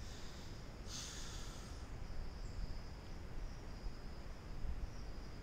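Faint steady background noise from the recording microphone: a low rumble with a thin high whine over it, and a short hiss about a second in.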